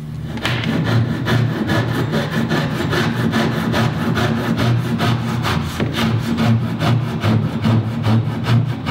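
Handsaw cutting through the old wooden top plank of a lapstrake rowboat in quick, even back-and-forth strokes, cutting away wood that is riddled with woodworm damage.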